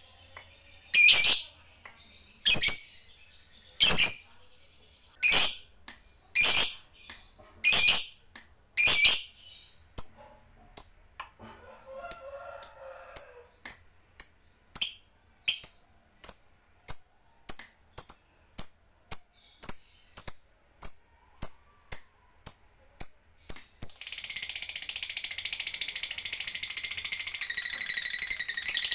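Lovebird calling: shrill chirps about once a second, then quicker, shorter chirps about two a second, and about five seconds before the end a continuous rapid chattering trill, the long 'ngekek', that is louder than the chirps.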